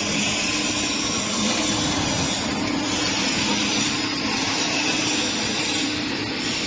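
Band saw machine running with a steady hum and a dense hiss.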